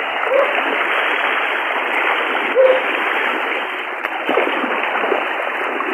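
Rushing floodwater of a swollen river: a steady, dense rush, with a short pitched blip about two and a half seconds in.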